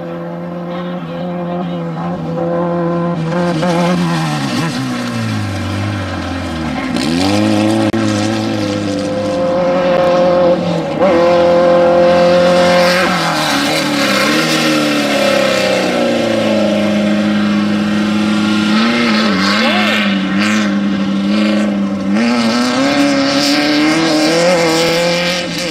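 Off-road desert race vehicle engines running hard. The pitch sinks low about five to seven seconds in, then climbs again with revving, over a dense rushing noise, and later on more than one engine note is heard at once.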